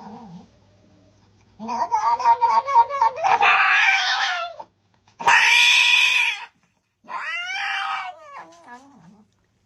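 A cat yowling: three long, loud drawn-out calls. The first begins with a quick warble, and the last slides down in pitch.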